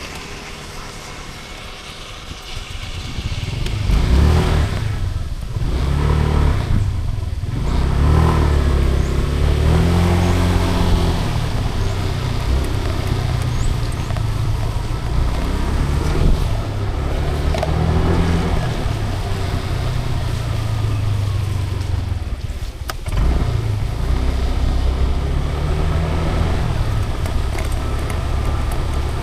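Car engine and road rumble as the car drives, the engine note rising and falling. It is quieter for the first few seconds, then louder and steady, with a brief dip a little after twenty seconds in.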